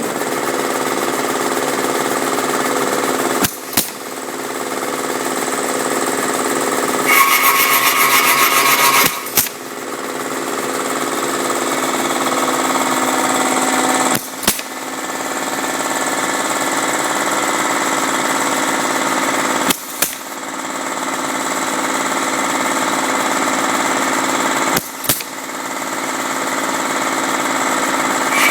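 MS3112 drilling-mortising machine running steadily while it cuts, with a sharp knock about every five seconds, each followed by a brief drop in level that builds back up. It gets louder and harsher for a couple of seconds about seven seconds in.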